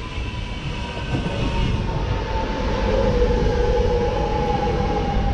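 Alstom X'Trapolis 100 electric multiple-unit train running along the platform, its wheels rumbling on the rails, with an electric motor whine that slowly falls in pitch as the train slows to stop at the station. The rumble grows louder as the carriages draw alongside.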